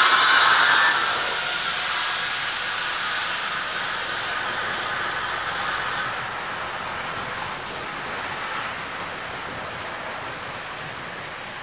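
Märklin model trains running on the layout's metal track: a steady rolling rattle of small wheels on rail, with a thin high whine held from about two seconds in to about six seconds. The running noise drops to a quieter level at about six seconds.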